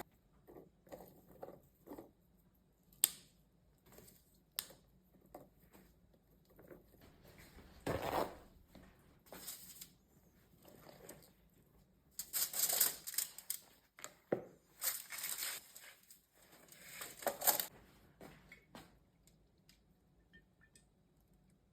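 Intermittent rustling and crinkling, like packaging being handled or torn, with scattered sharp clicks and knocks from kitchen food preparation. The louder rustling comes in bouts about eight seconds in and again between twelve and eighteen seconds.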